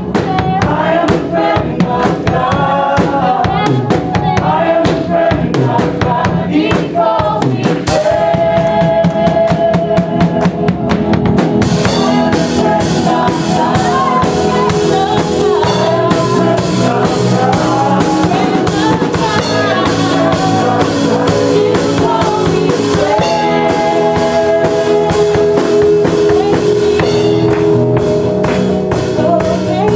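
Live worship band playing with singing and a drum kit keeping a steady beat; the drums and cymbals come in fuller about twelve seconds in.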